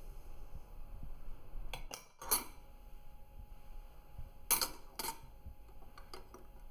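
Metal spoons clinking: a few light clinks about two seconds in, then two spoons set one after the other into a ceramic bowl with two sharper clinks half a second apart, followed by a few faint ticks.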